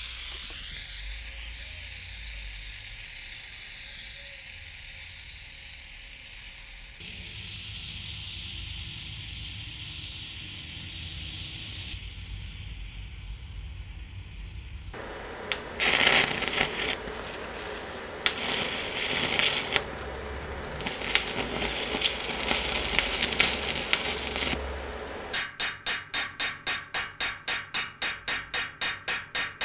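Workshop tool work on antique mower parts, in several abrupt cuts: steady working noise at first, then loud, harsh, irregular stretches, and near the end a rapid, regular stroking rhythm of about four strokes a second.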